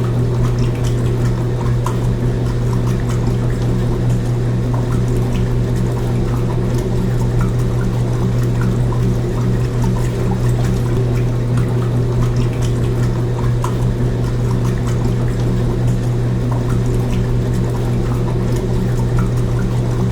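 Washing machine running, with a steady low hum and water sloshing inside the drum.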